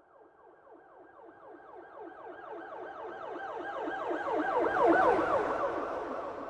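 Police siren in a fast yelp, its pitch sweeping up and down several times a second. It grows louder as the vehicle approaches, is loudest about five seconds in with a low rumble of the passing vehicle, then fades as it drives away.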